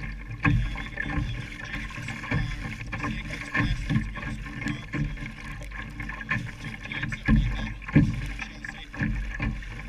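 Irregular low clunks and knocks, about one a second and loudest about seven and eight seconds in, over a muffled, boomy background: the clunking and poor audio of a GoPro recording inside its waterproof housing.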